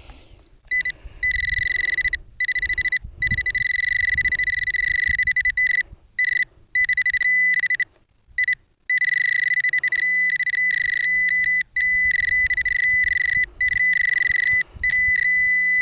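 Metal-detecting pinpointer sounding a steady high electronic tone. It cuts in and out again and again as the probe is moved over and away from a metal target in the soil. Faint scraping and thuds of digging in earth run underneath.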